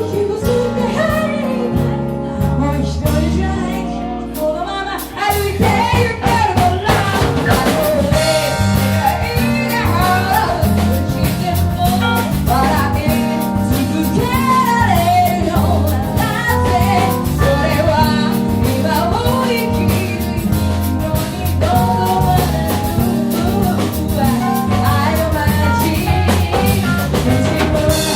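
A band playing, with a drum kit and a bending lead melody. For the first five seconds it is a thinner passage of held bass notes, then the full band with drums comes in and plays steadily on.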